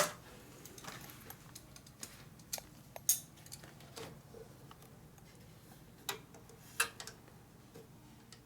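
Scattered light clicks and knocks of hand tools and small metal parts being handled during work on a motorcycle, about six in all, the loudest about three seconds in.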